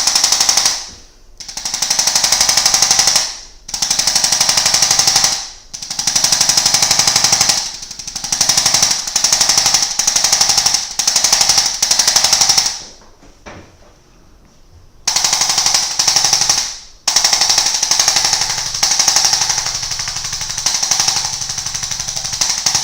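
ArthroStim adjusting instrument firing rapid-fire taps into the back, in bursts of about one to two seconds with short pauses between them and a longer pause about two-thirds of the way through.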